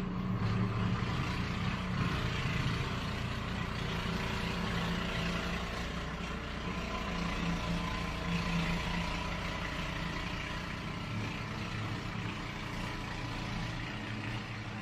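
A motor vehicle's engine running steadily, with a low hum and a steady hiss over it.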